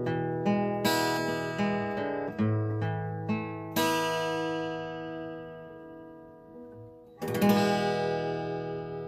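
Acoustic guitar playing the song's closing bars: a run of picked notes, a strummed chord about four seconds in that rings and fades, then a final strummed chord about seven seconds in, left to ring out.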